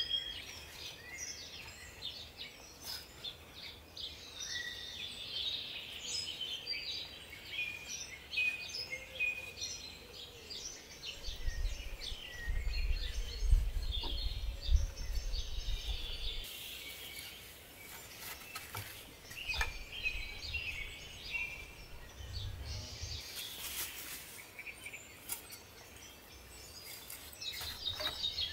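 Small garden birds chirping and singing. A low rumble runs for several seconds around the middle, and short rustling noises come in the second half.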